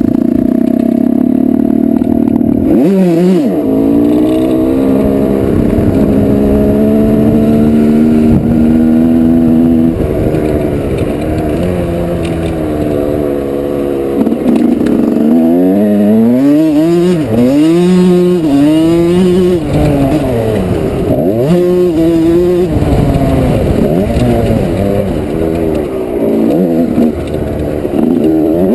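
1987 Yamaha YZ125's single-cylinder two-stroke engine ridden hard: it is held at high revs for the first several seconds, with a brief drop about three seconds in. From about halfway it revs up and falls off again and again as the throttle is opened and closed.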